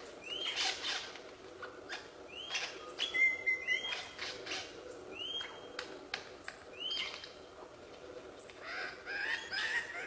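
Superb lyrebird singing: a varied run of whistled notes mixed with sharp clicks, with a short rising-then-level whistle repeated every second or two and a quicker cluster of notes near the end.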